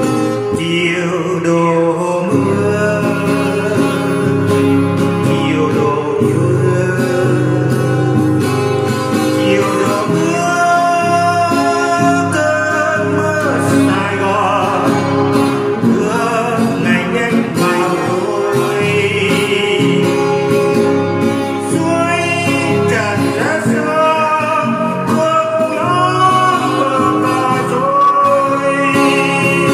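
A song: a man singing over acoustic guitar.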